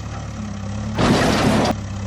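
A vehicle engine idling with a steady low hum. About a second in, a loud rushing burst of noise comes in and cuts off abruptly after under a second.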